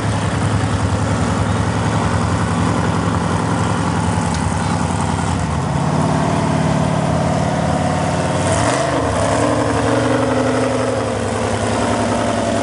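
Mega truck's engine running at low revs as the truck crawls across the mud, with a brief dip and rise in pitch about nine seconds in before it runs steady again.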